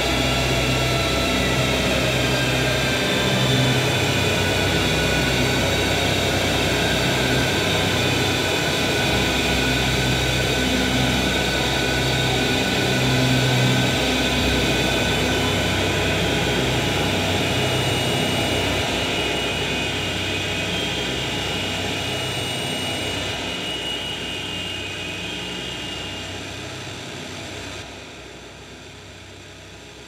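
Experimental noise-drone music: a dense, steady wall of sound with a throbbing low hum underneath. It fades away gradually over the second half and drops off sharply near the end.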